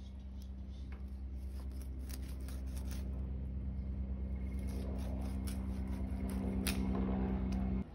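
A steady low machine-like hum that slowly grows louder and cuts off suddenly near the end, with a few light clicks and scrapes over it.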